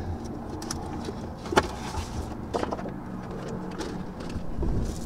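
Rustling and light knocks of things being handled in a car's back seat over a low rumble, with a sharp click about a second and a half in and another a second later.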